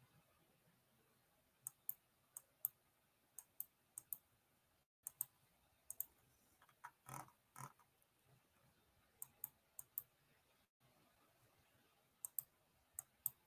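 Faint, sparse clicking at a computer, scattered single clicks and quick pairs a few seconds apart, with two softer, duller sounds about seven seconds in.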